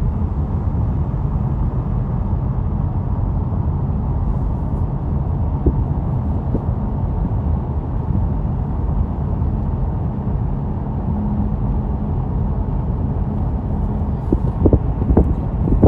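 Steady road and engine noise heard inside a moving car's cabin: a low rumble with a faint steady hum. A few short, sharp sounds come near the end.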